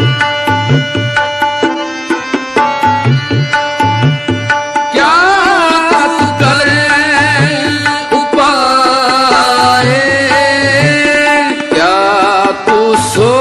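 Sikh kirtan in Raag Malhar: tabla keeping a steady rhythm under the held notes of a harmonium. From about five seconds in, a male voice sings a long, ornamented melodic line.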